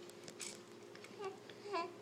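Baby making short babbling sounds: two brief vocal noises in the second half, over a faint steady hum.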